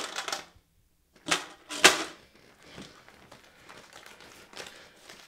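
Handling of a metal tin: a few sharp clicks and knocks, the loudest about two seconds in. Then soft scratching and rustling of a pen on paper.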